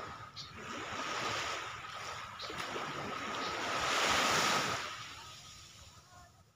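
Small sea waves breaking and washing up a pebbly shore. The wash swells to its loudest about four seconds in, then fades away near the end.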